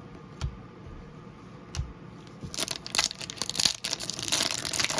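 Two light taps, then, from about halfway, the loud crinkling and tearing of a trading card pack's wrapper being ripped open.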